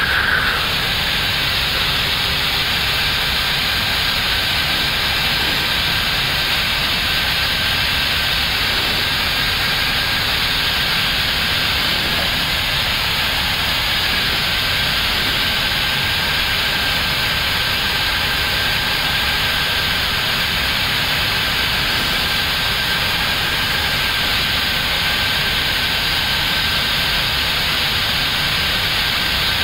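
Steady rushing noise inside the cockpit of an Airbus A321neo in descent, with a faint steady high tone running through it.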